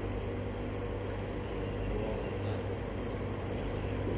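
Steady low hum with an even background hiss; nothing stands out.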